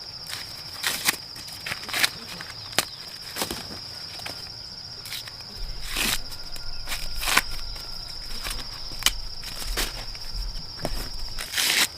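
Steady, high-pitched insect chorus, with irregular sharp clicks and knocks scattered throughout.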